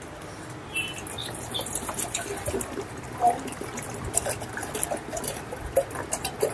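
Water heating for green tea, with irregular small ticks and crackles of bubbling over a low hiss, a little louder from about a second in.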